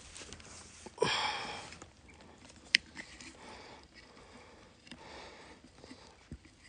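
A person walking through dry grass and brittle scrub, with faint scattered crunching and crackling underfoot. About a second in there is a loud, short rush of breath-like noise that fades quickly, and a sharp click comes near the three-second mark.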